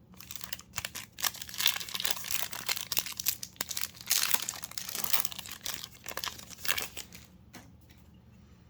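Foil Yu-Gi-Oh! booster pack wrapper being torn open and handled: a run of crackly crinkling rustles that stops about seven seconds in.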